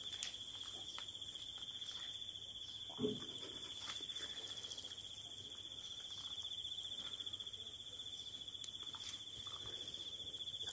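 A cricket trilling: one steady, unbroken high-pitched trill. A single dull thump sounds about three seconds in.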